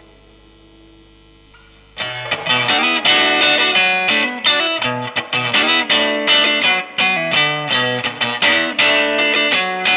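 Stratocaster electric guitar with Lollar '64 single-coil pickups, played with little gain through a Fender Blues Junior tube amp and no pedals. A chord rings out faintly, then about two seconds in a busy, loud passage of picked notes and chord stabs begins.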